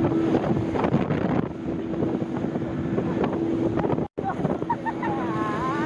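Wind buffeting a chest-mounted camera's microphone and water rushing as a banana boat is towed at speed behind a motorboat, with the towing boat's engine as a steady hum underneath. The sound cuts out for an instant about four seconds in.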